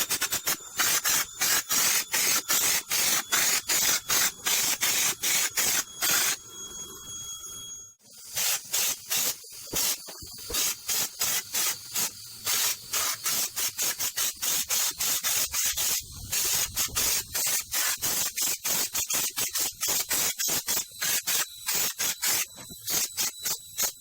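Underseal being sprayed onto a car's underside in quick short bursts, about three a second, each a hiss with a high whistle. The spraying pauses for a couple of seconds about six seconds in, then carries on.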